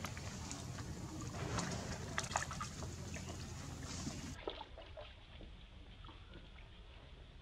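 Water sloshing and splashing in a tarp-lined pool as macaques wade and swim in it, with scattered small splashes and clicks; it turns quieter about four seconds in.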